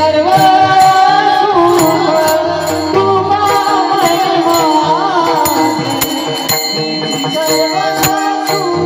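Marathi devotional panchpadi song: a sustained, gliding melodic vocal line over an instrumental accompaniment, with a steady beat of sharp percussive strokes and jingling metal.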